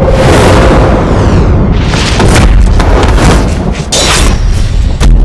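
Loud, continuous booming rumble with repeated heavy hits and a falling sweep about a second and a half in: dramatic boom and impact sound effects.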